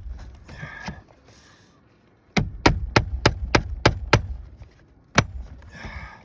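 Hammer driving a roofing nail into a shingle: a run of seven quick strikes about three a second, with single strikes near the start and near the end.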